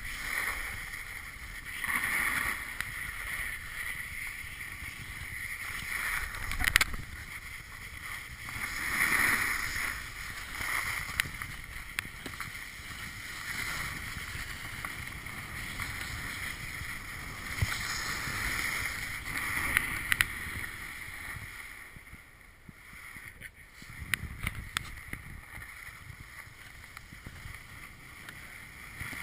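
Snowboards sliding and carving over packed snow: a scraping hiss that swells and fades every few seconds with the turns, with a few sharp clicks.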